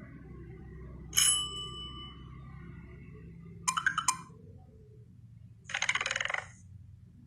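Smartphone notification tones played one after another: a bell-like ding about a second in that rings on briefly, a quick rattle of clicks a little before the middle, and a short buzzy tone about six seconds in.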